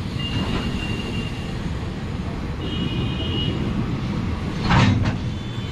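Passenger train of Indian Railways coaches passing close by on the next track: a steady rumble of wheels on rails, with a thin high whine twice and a short louder clatter near the end.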